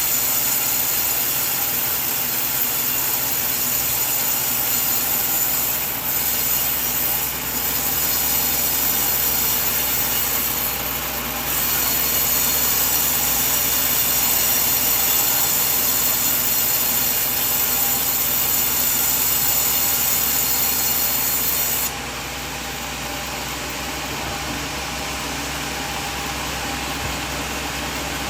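Sawmill bandsaw blade cutting through a coconut log, a steady harsh sawing noise with two brief dips. About 22 s in, the high sawing noise falls away and the machine runs on more quietly.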